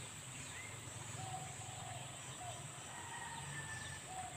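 Birds calling: short, level whistled notes repeated several times, over a steady high-pitched hiss.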